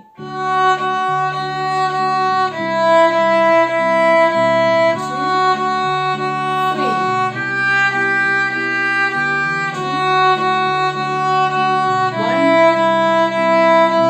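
Violin bowed on the D string, playing a simple beginner tune whose pitch steps to a new note about every two and a half seconds, over a backing track.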